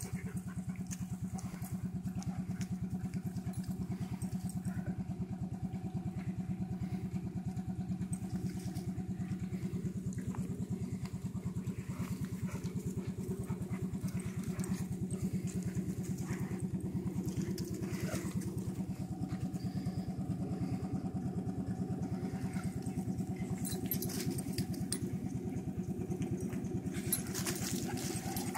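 A small engine running steadily at an even, unchanging idle.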